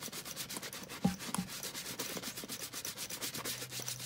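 A brush scrubbing saddle-soap lather into a leather motorcycle boot in quick, even back-and-forth strokes, with a brief light knock about a second in.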